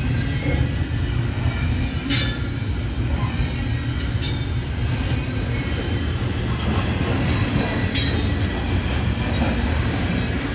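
Railroad cars rolling past on the rails with a steady low rumble, and a few sharp, brief metallic sounds from the wheels, the loudest about two seconds in.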